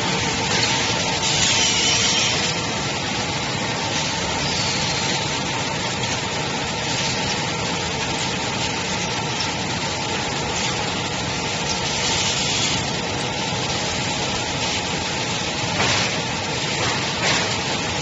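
Conduit-pipe belling machine running: a steady machine noise with faint steady tones, broken every few seconds by short hissing bursts.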